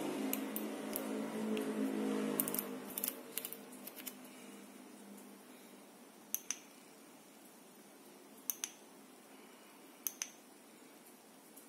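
Push-button switch on an aluminium-alloy three-head headlamp clicking, press and release, three times about two seconds apart as the light is switched between modes. In the first few seconds a low droning hum fades away under scattered small clicks of handling.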